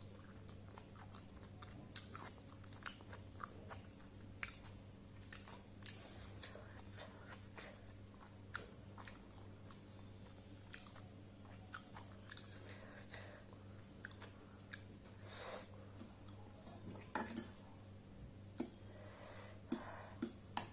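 Close-miked mouth sounds of chewing steamed momo dumplings: soft, wet clicks and smacks at irregular intervals, with a few sharper clicks near the end. A faint steady electrical hum lies underneath.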